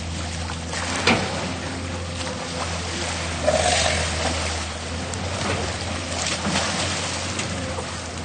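River water splashing as elephants swim and play, over a steady low rumble. A sharp knock comes about a second in, and a louder burst of splashing about three and a half seconds in.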